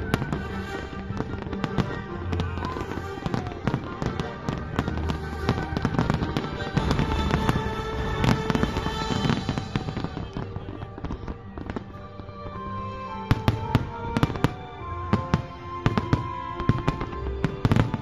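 Aerial fireworks display: shells bursting in a rapid run of bangs and crackles, coming thicker and louder in the last few seconds, with music playing under them.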